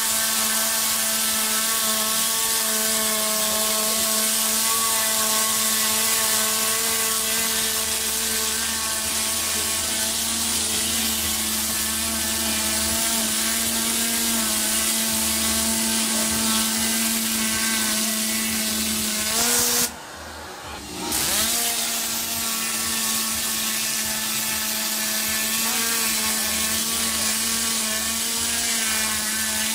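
A small electric motor running with a steady whine. It cuts out about twenty seconds in and starts up again a second or so later.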